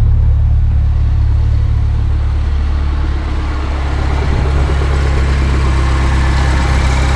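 2011 Mini Cooper S's turbocharged four-cylinder engine idling smoothly and steadily, a low steady hum that eases slightly from about three seconds in.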